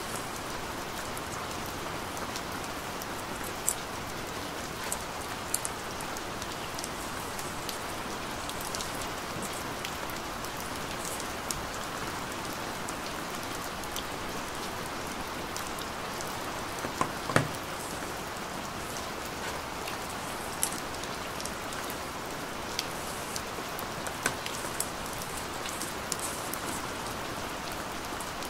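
A steady hiss, with scattered light clicks and taps from a cardboard box and its paper inserts being opened and handled; the sharpest taps come about 17 seconds in.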